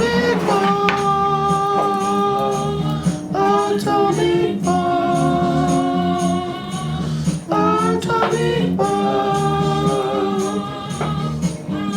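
Background music: a singing voice holding long notes over a steady beat and a low accompaniment.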